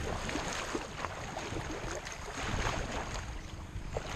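Shallow river current rushing and splashing around a plastic whitewater kayak, with many small irregular splashes against the hull.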